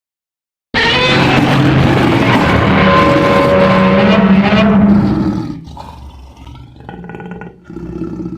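Fan-made Godzilla roar sound effect, made to sound bestial. A loud, long roar starts abruptly about a second in and holds for about four seconds, then trails off into a quieter tail that cuts off at the end.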